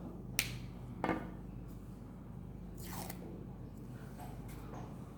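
Small-object handling noise: two sharp clicks, the first about half a second in and the second a little before the two-second mark, then a brief rustle around the middle and a few faint ticks, over a steady low hum.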